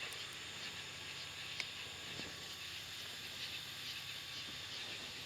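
Steady high hiss of insects calling, with one faint tick about one and a half seconds in.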